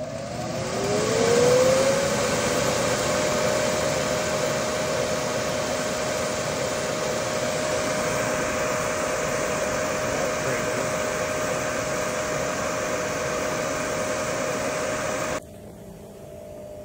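Electric bounce-house inflator blower starting up: its motor tone rises over about two seconds as it spins up, then settles into a steady whir with rushing air. The sound drops off abruptly near the end.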